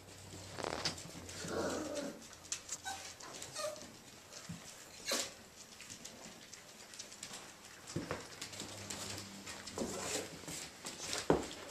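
Irish Jack Russell Terrier puppies playing: small, scattered puppy noises with scuffling, clicks and taps as they tussle and mouth a ball.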